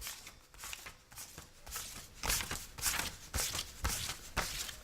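Paper banknotes being counted by hand: a rapid, irregular run of short papery flicks as bill after bill is thumbed through, getting louder about two seconds in. It is played as a sound effect over the church's sound system.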